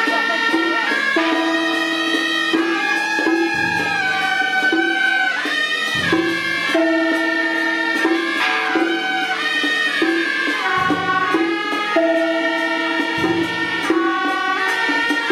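Ensemble of suona (Chinese double-reed shawms) playing a traditional processional tune in unison, with held, shrill reedy notes that step from pitch to pitch. Low percussion strokes sound every few seconds beneath it.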